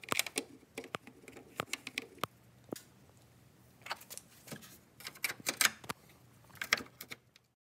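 Scattered sharp clicks and light taps, some in quick clusters, from hands handling a plastic work light against a truck's headlight housing.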